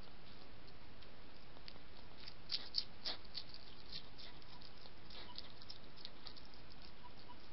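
Wild European hedgehogs crunching dry kitten biscuits: a quick run of small crisp crunches and clicks over a steady hiss, loudest in a cluster about two and a half to three seconds in.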